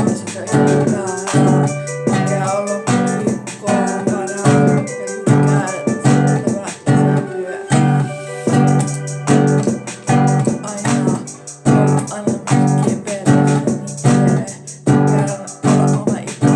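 Instrumental music with a steady beat: pitched notes struck in a regular rhythm throughout.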